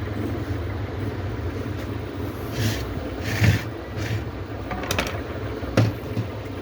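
Steady low background hum with a few handling noises: two short scrapes near the middle, then a few sharp clicks or knocks near the end.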